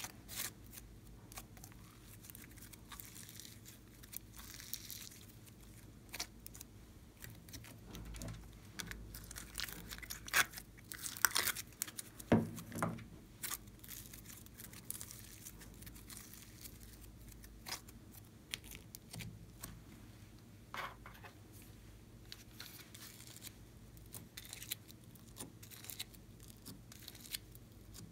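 Slime being squeezed, stretched and pulled apart by hand, with sticky crackling and tearing sounds and scattered sharp clicks. The loudest crackles come around the middle.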